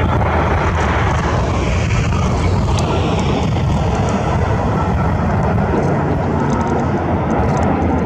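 Rolls-Royce Trent 1000 turbofans of a British Airways Boeing 787-8 at approach power as the jet passes low on final with gear down: a steady jet rumble and rush, with a faint engine whine rising and then falling in pitch.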